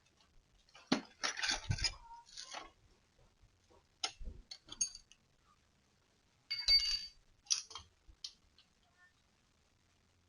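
Three short spells of clinking and clattering of small hard objects: about a second in, around four seconds in and around seven seconds in.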